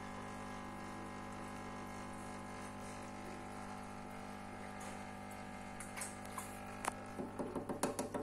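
Aquarium internal power filter running: a steady electric hum from its pump motor with the splash and trickle of water from its outlet. A few sharp clicks and light knocks come in the last two seconds.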